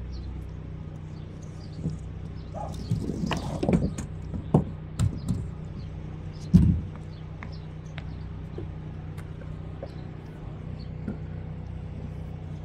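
Handling noise as the camera is picked up: knocks and rubbing, with one loud thump about six and a half seconds in, over a steady low hum.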